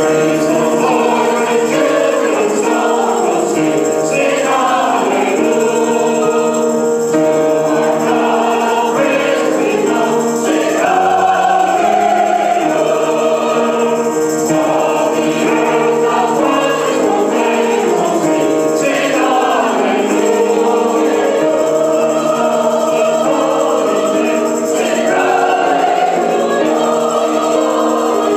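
Greek Orthodox church choir of men's, women's and children's voices singing a hymn together in several parts.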